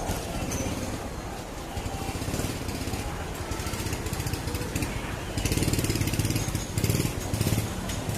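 A small engine running with a rapid rattle, louder from about five and a half seconds in.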